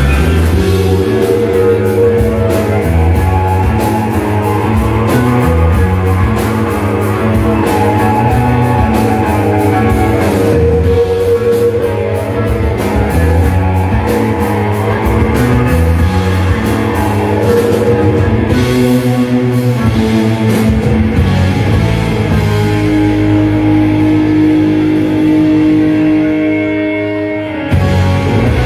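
Live rock band playing loudly: electric guitars over a drum kit, with a long held note near the end.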